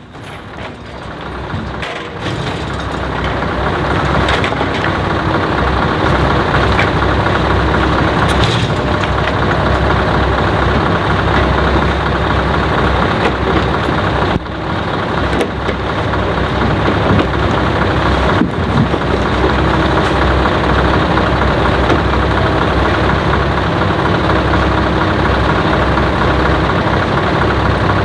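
Scania R500 timber truck's V8 diesel engine running at low revs as the loaded-crane truck creeps forward. It fades in over the first few seconds, then holds steady, with a couple of brief knocks partway through.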